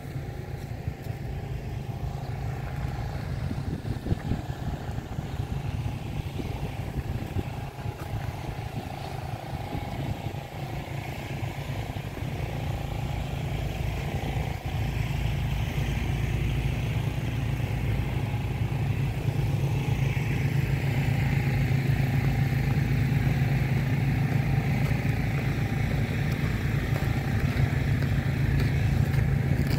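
Motor vehicle engine running nearby in street traffic: a steady low rumble that grows louder over the second half.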